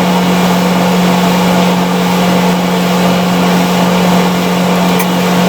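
Repaired clothes dryer running: the drum motor and blower make a steady hum with no squeak, while the heating element is on.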